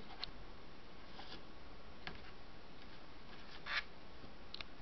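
Cardstock pop-up card being handled and folded: a few short, faint rustles and scrapes of paper, the strongest about three and a half seconds in, over a steady hiss.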